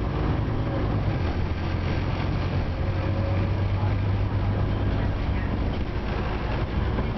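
Scania OmniCity bus heard from inside the passenger saloon while under way: a steady low engine and drivetrain drone with road noise, even throughout.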